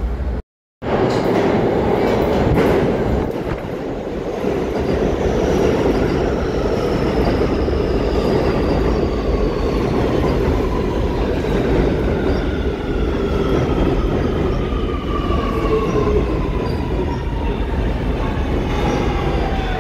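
New York City subway train pulling into an underground station, with a steady rumble of wheels on rail. An electric whine falls slowly in pitch as the train brakes. The sound cuts out for a moment about half a second in.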